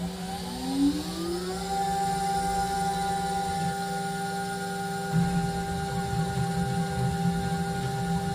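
CNC router spindle spinning up with a rising whine, then running at a steady pitch. About five seconds in, a rougher low rumble joins the whine.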